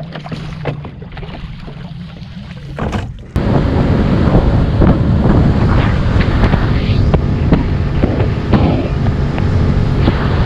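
A few knocks and clunks over a low steady hum as the bow-mounted Minn Kota electric trolling motor is stowed, then, about three seconds in, an abrupt switch to loud wind buffeting the microphone and water rushing and slapping against the aluminium hull as the boat runs at speed.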